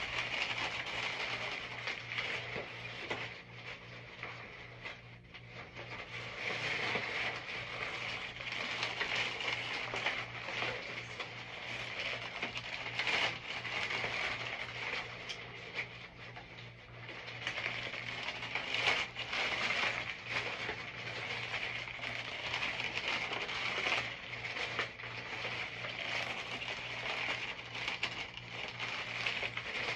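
Plastic-wrapped case of bottled water crinkling and crackling unevenly as it is lifted and lowered, the wrap and thin bottles rustling and clicking, over a steady low hum.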